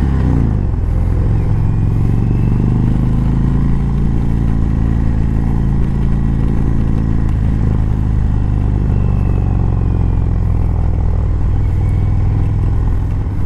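Indian touring motorcycle's V-twin engine under way, heard from the rider's seat. The engine note drops near the start as it shifts up, then runs steadily while cruising.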